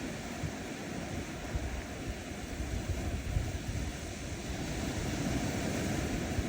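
Ocean waves washing onto a sandy shore: a steady surf hiss, with low wind rumble on the microphone.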